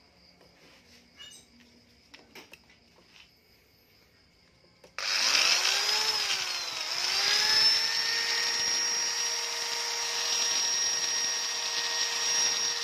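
Belton EBS-10 electric angle grinder switched on about five seconds in after a few faint handling clicks: its motor whines up to speed, dips in pitch once and climbs back, then runs at a steady high whine. The brushes are not sparking at all, a sign the motor is in good condition.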